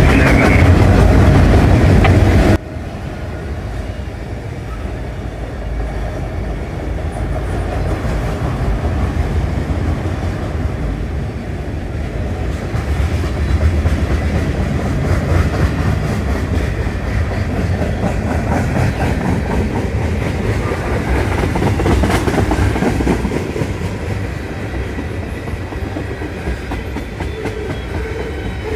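A long freight train's cars rolling past, a steady rumble with the clickety-clack of wheels over the rail joints. Before that, a louder burst of music cuts off abruptly about two and a half seconds in.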